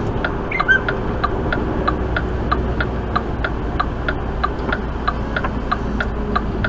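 Turn signal clicking steadily in a truck cab, about four clicks a second, over the low steady drone of the Mack semi's engine and road noise.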